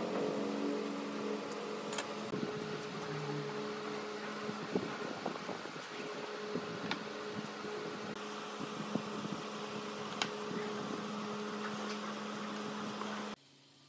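A steady mechanical hum with two held tones, over which come scattered light clicks and taps of a metal square and pencil on pine segments. The hum cuts off suddenly near the end.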